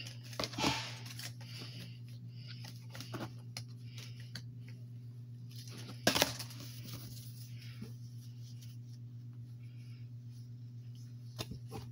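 Fabric rustling and small handling noises as baby clothes are picked up and folded by hand, with a louder rustle about six seconds in.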